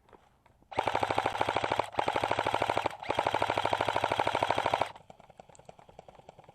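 Airsoft rifle firing on full auto: three long, rapid bursts with two short breaks, about four seconds of fire in all.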